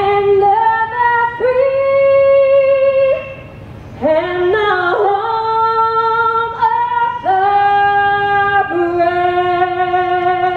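A woman singing solo into a microphone without accompaniment, holding long notes, with a short break for breath about three and a half seconds in.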